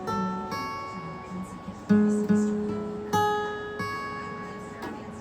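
Acoustic guitar playing a slow instrumental intro: single picked notes and chords, each ringing out and fading before the next.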